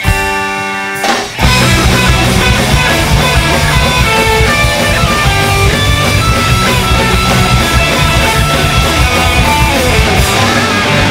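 Punk rock band playing live: a held electric guitar chord rings, then about a second in drums, bass and guitars come in together at full volume and the song gets under way.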